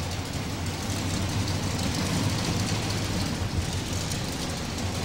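Chevrolet modified 4x4 pulling truck's engine running steadily at low speed as the truck comes into the arena before its pull.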